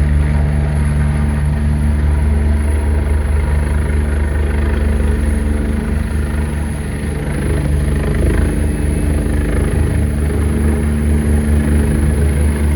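Helicopter running, its rotor beating in a fast steady pulse with a thin high whine above it; the level dips briefly about six seconds in.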